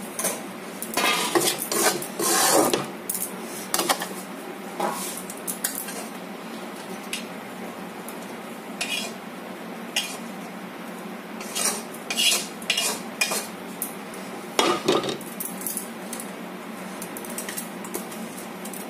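A metal spatula scrapes and knocks against a kadai (Indian wok) as cooked potatoes are scooped out into a steel bowl, with clinks of metal on the steel bowl. The clatter comes in irregular bunches over a steady low hum, loudest in the first few seconds.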